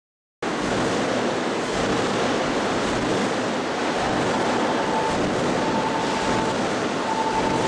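Steady machinery noise of a press shop floor, cutting in abruptly about half a second in, with a faint whine that comes and goes in the second half.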